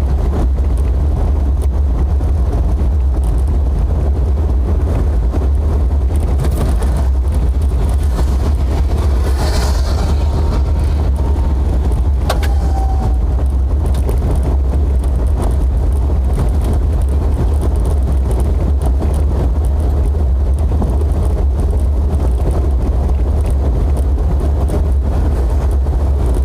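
A Jeep being driven, heard from inside: a steady low rumble of engine and road noise at an even level. A single click is heard about twelve seconds in.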